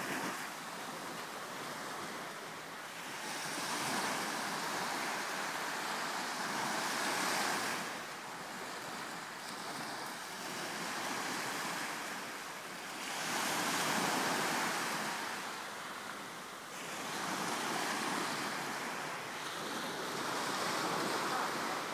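Sea waves washing onto the shore. The surf swells and falls back every few seconds.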